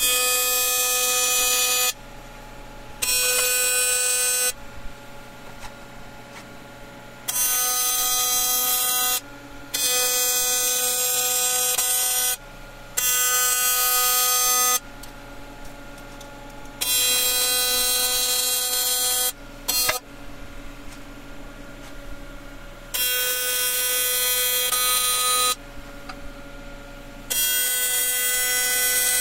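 AC TIG welding arc from a Miller Dynasty 400 on an aluminum wheel, buzzing steadily at a high pitch. It comes in about eight bursts of roughly two seconds that start and stop abruptly, with quieter gaps between.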